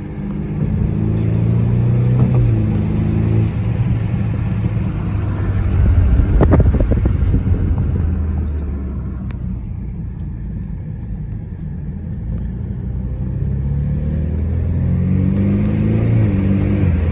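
BMW F30 exhaust accelerating with a rising engine note, then a cluster of sharp exhaust pops about six to seven seconds in as the revs fall, before the engine note rises again near the end.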